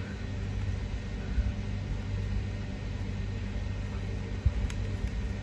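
Faint plastic clicks of a Megaminx puzzle's layers being turned by hand, a few of them, the clearest about four and a half seconds in, over a steady low hum.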